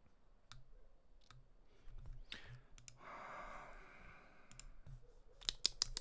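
Faint computer mouse and keyboard clicks: scattered single clicks, then a quick run of clicks near the end. A soft rushing noise lasts about a second and a half in the middle.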